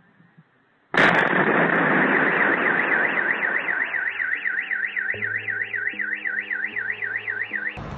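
A sudden loud explosion about a second in, its rumble dying away over the next few seconds. A car alarm sets off at once and warbles about three times a second, joined by a low steady tone about four seconds in. The sound cuts off just before the end.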